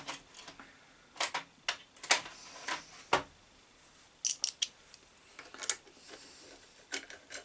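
Metal hand tools clinking and clicking as they are sorted through and picked up, about a dozen short sharp clinks with gaps between, while the next size up is looked for.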